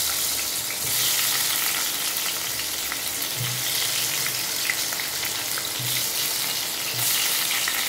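Potato pieces coated with salt and turmeric sizzling in hot mustard oil in a non-stick kadai, a steady frying hiss. A few soft low thuds come as more pieces are set into the pan, and the sizzle grows louder for a moment near the start and again near the end.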